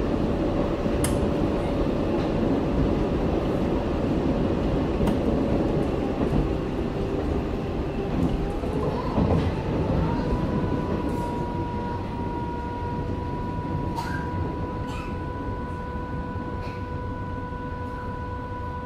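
Berlin U-Bahn F79 train standing at a station: a loud rail rumble eases off about ten seconds in, leaving a steady whine of several pure tones from the stationary train's electrical equipment, with a few faint clicks.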